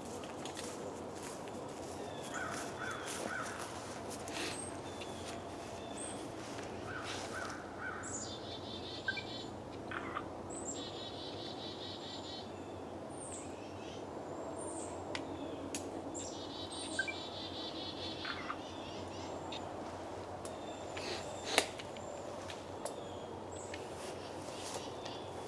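Songbirds singing: repeated short trilled phrases and chirps over a steady background hum, with scattered small clicks and one sharp knock late on.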